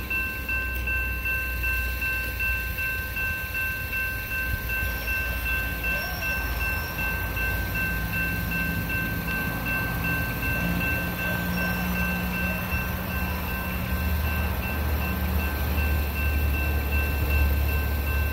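Railroad grade crossing's electronic warning bell ringing steadily: the crossing signal is activated for a train. A low rumble sits underneath and grows louder in the last few seconds.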